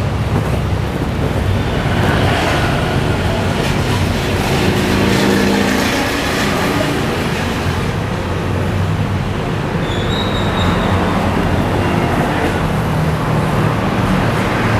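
Steady road-traffic noise: motor vehicles running and passing, their engine hum swelling and fading, with a brief high tone about ten seconds in.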